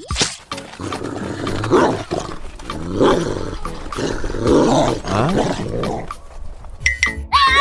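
A long growling roar that swells and fades several times. Near the end comes a short, gliding, pitched sound.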